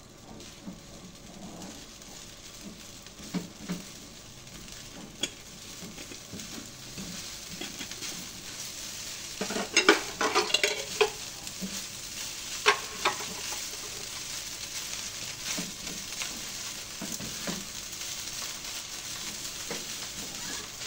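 Fried rice sizzling in a frying pan while it is stirred, with a steady frying hiss and scraping, and a cluster of sharp clanks of the stirring utensil against the pan about ten seconds in and again about thirteen seconds in.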